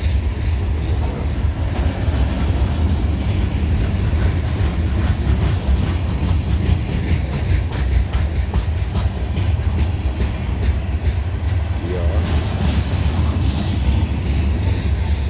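Loaded centerbeam flatcars of a freight train rolling past close by: a loud, steady rumble of steel wheels on the rails.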